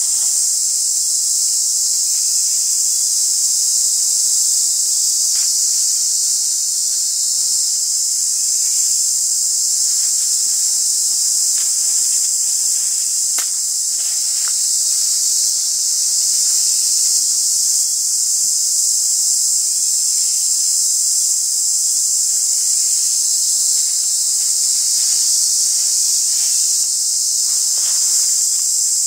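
A steady, high-pitched insect chorus buzzing without a break, with a few faint clicks in the middle and near the end.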